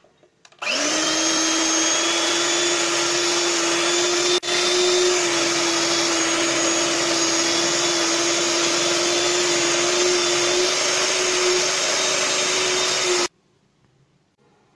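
Electric hand mixer running at one steady speed, its beaters working cookie dough in a glass bowl. The motor starts about half a second in, drops out for an instant a little after four seconds, and cuts off abruptly near the end.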